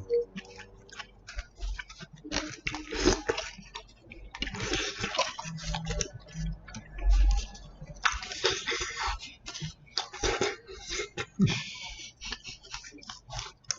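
Close-miked eating sounds: wet chewing and mouth clicks, broken by several short bursts of rustling or smacking noise about a second long each.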